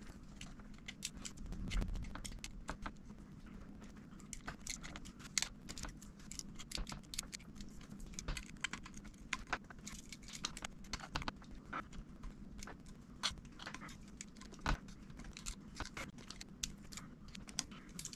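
Light, irregular clicks and scrapes of a hand tool working old battery adhesive strips off the inside of a 2017 MacBook Pro's aluminium case, with one louder tap near the end.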